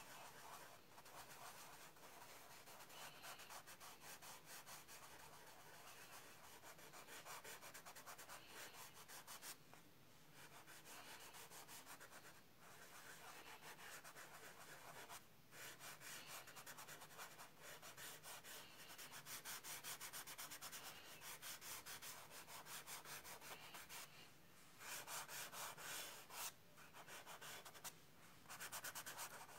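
Faint, rhythmic rubbing of a fingertip over tan card, blending the colored-pencil layers, with a few brief pauses.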